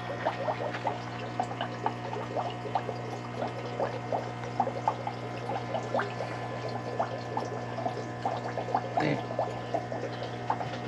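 Aquarium filter running: water trickling and bubbling in many small irregular splashes over a steady low pump hum.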